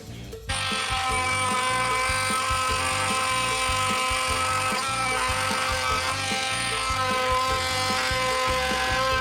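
Oscillating multi-tool running with a steady high-pitched buzz, starting about half a second in, over background music with a beat.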